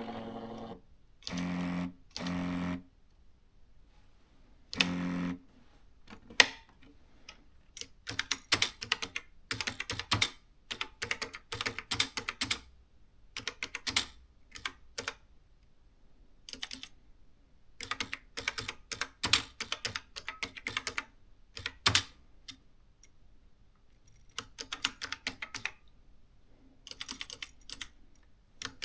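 Canon S-60 thermal electronic typewriter: a few short motor whirs in the first five seconds, then runs of rapid key clicks as text is typed, broken by short pauses.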